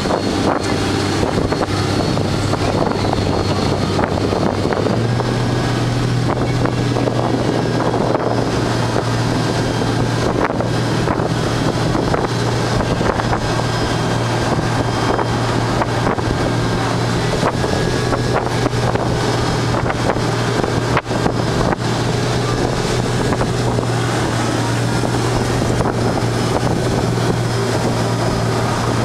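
Motorboat engine running steadily, its revs stepping up about five seconds in, with wind buffeting the microphone and water rushing past the hull.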